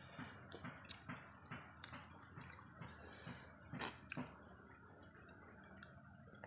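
Faint, scattered wet clicks and smacks of people eating grilled fish with their fingers, pulling the flesh apart and chewing, with a couple of sharper clicks.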